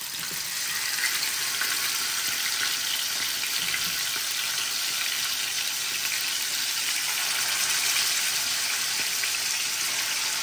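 Marinated chicken pieces sizzling in hot oil in a frying pan: a steady hiss that swells a little in the first second as more pieces are laid in.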